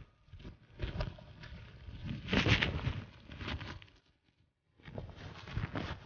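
Cloth and paper rustling irregularly, with a short pause about four seconds in.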